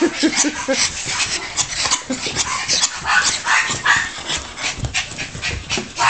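Miniature pinschers whimpering, yipping and panting, stirred up by a robot vacuum, with a cluster of short yips about halfway through.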